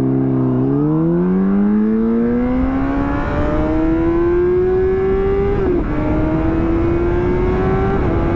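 2009 Honda CBR600RR's inline-four pulling away under acceleration: the revs climb steadily, drop at an upshift about five and a half seconds in, then climb again, with another shift near the end.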